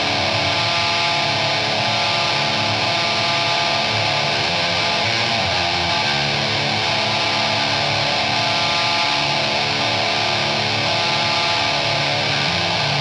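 Black metal song: a dense wall of distorted electric guitar at a steady level.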